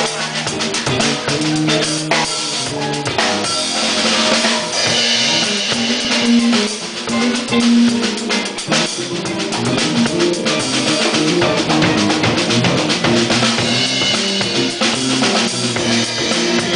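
Instrumental music with a drum kit playing a beat, kick and snare strikes over sustained held notes.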